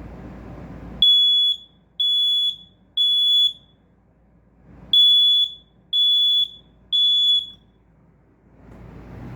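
First Alert SA304 smoke alarm sounding on test: two rounds of three loud, high-pitched beeps, each about half a second, with a pause between rounds. This is the standard temporal-three evacuation pattern.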